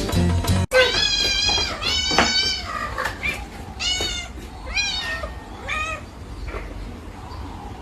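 Domestic cat meowing over and over: several loud, drawn-out meows in quick succession that rise and fall in pitch, becoming fainter and more spaced out toward the end.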